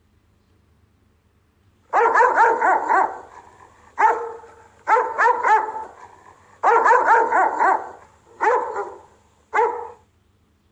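A Rottweiler's guard barking. It starts about two seconds in and comes in six volleys of quick barks, the last two volleys short.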